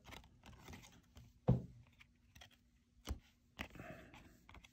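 Baseball trading cards being handled: soft, scattered clicks and taps as cards are slid off a stack and set down, with a sharper tap about a second and a half in and two more near three and a half seconds.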